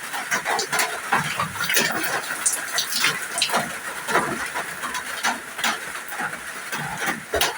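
Water splashing and dripping in irregular drops and splashes over a steady hiss of falling rain.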